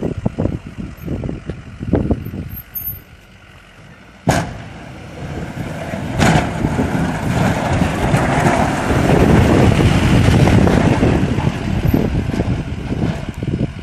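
Ford F-250 pickup truck running close by, with a sharp click about four seconds in and another about two seconds later, then a steady engine-and-road noise that grows louder as the truck is approached.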